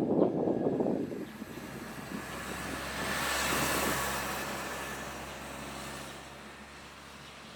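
A motor vehicle passing by, its engine and tyre noise swelling to a peak a few seconds in and then fading away. A loud burst of low rumbling noise fills the first second.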